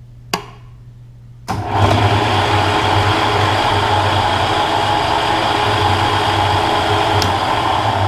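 A click, then a machine tool's electric motor and gear train start up about one and a half seconds in and run with a steady, loud hum. It is still in back gear, and it begins to wind down right at the end.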